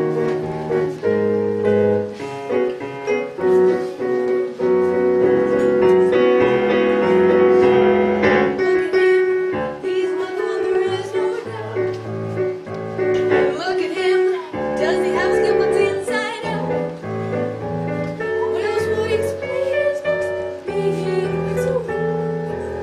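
Show-tune accompaniment led by piano, playing held chords that change every second or two, with a long sustained note midway.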